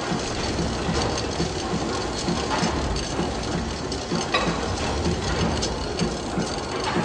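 Victorian steam beam-engine machinery running: a steady mechanical clatter with a regular low knock about three times a second and scattered metallic ticks.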